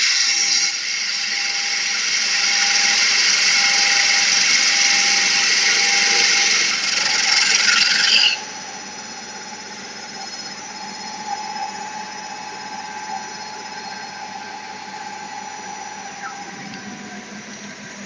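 Stone CNC router drilling into a stone slab with a water-cooled drill bit: a loud, high-pitched screech of the bit grinding through stone for about eight seconds, which then cuts off suddenly. After that only the spindle motor's steady hum remains.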